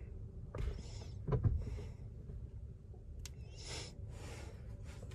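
Quiet cabin tone with a low hum, broken by three soft breaths and a single light click about three seconds in.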